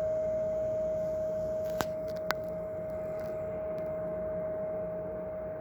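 A steady, single-pitched hum drones on without a break, the kind of persistent noise complained of as nightly nuisance. Two sharp clicks come half a second apart about two seconds in.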